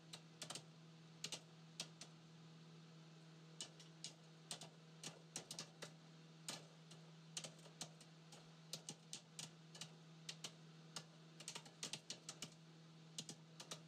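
Faint clicking of a computer keyboard being typed on, with irregular keystrokes in short runs, over a low steady hum.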